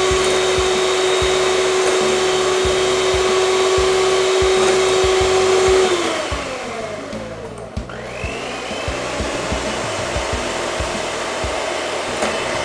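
Electric hand mixer beating egg yolks in a glass bowl as milk is added. Its motor runs at a steady pitch, slows down about six seconds in, then picks up speed again around eight seconds in.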